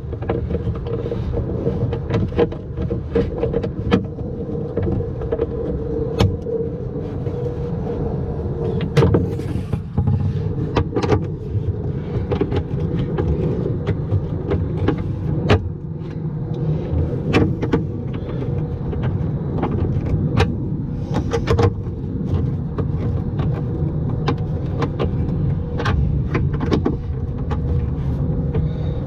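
A steady low mechanical hum, with many short clicks and light knocks of hand-tool work scattered through it.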